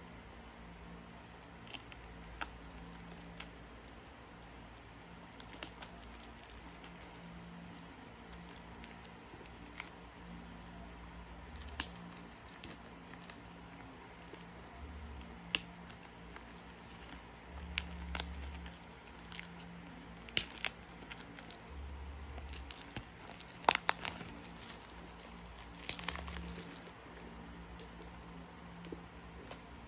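Plastic shrink wrap on an album box crinkling and tearing as fingers pick and scratch at it, with scattered sharp crackles and taps; the loudest cluster comes about three quarters of the way through.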